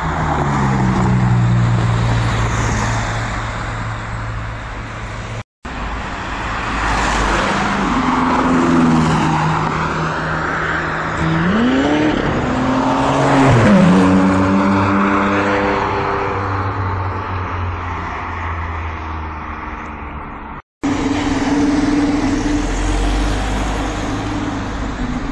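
Supercar engines accelerating in three quick takes. First a Ferrari 458's V8 pulls away. Then an engine revs hard through rising gear pulls and fades as the car passes, the loudest moment near the middle. Last a Lamborghini Huracán's V10 drives up a street with a deep, steady rumble.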